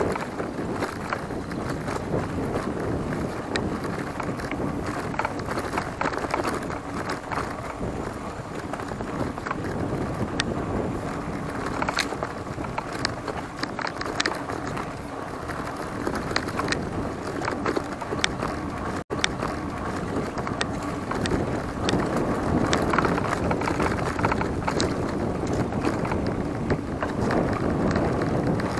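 Giant Talon 3 hardtail mountain bike riding over a dirt trail: steady tyre and wind noise with frequent sharp clicks and rattles from the bike.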